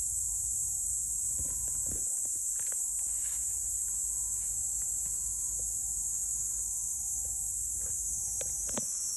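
Steady, high-pitched chorus of singing insects, unbroken throughout, with a few faint clicks and taps.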